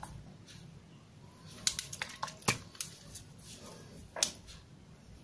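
Handling noise from a plastic spray bottle in its shrink-wrap being turned over in the hands: a few light, scattered clicks and crinkles.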